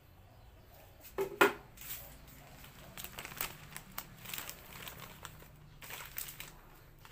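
Thin clear plastic film crinkling and rustling as it is spread and pressed down over the rim of a water-filled plastic bucket, in a run of irregular crackles. Two sharper, louder crackles come about a second in.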